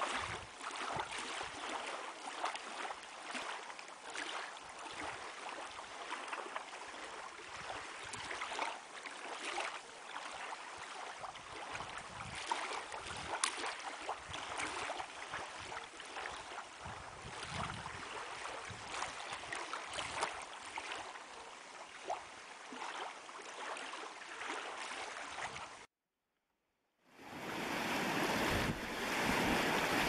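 Lake water lapping and splashing in small waves, a steady wash full of little splashes. After a brief cut to silence near the end, louder wind-driven waves break on a pebble shore, with wind buffeting the microphone.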